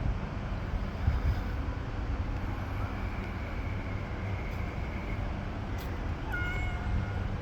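Steady low rumble of background noise, like traffic or wind, with a short high cat meow near the end.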